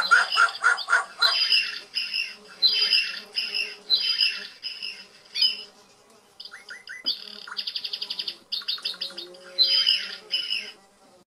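Recorded farmyard poultry, hens squawking and cackling, played back from a model layout's sound chip: a quick run of calls, then a string of single squawks, a fast rattling cackle in the second half, and one more squawk near the end.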